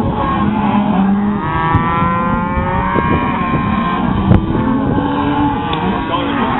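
A herd of cattle bawling and mooing, several overlapping calls one after another, some low and some higher and gliding, over a steady low rumble.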